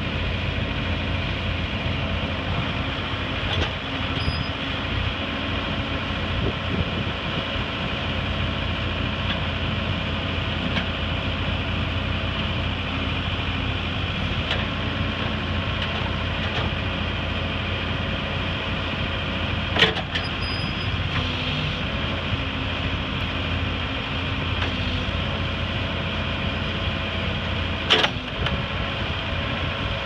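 Case 580 backhoe-loader's diesel engine running steadily while the backhoe boom and bucket are worked, with two sharp knocks, about two-thirds of the way through and near the end.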